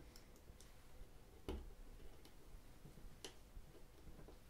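Faint, spaced clicks from the side buttons of a Thermaltake Level 10 M gaming mouse being pressed, about six in all, the loudest about one and a half seconds in.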